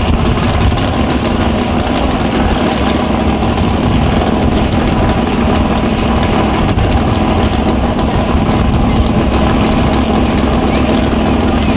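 Front-engine dragster's V8 idling steadily through open exhaust headers, a loud, even running sound with no revving.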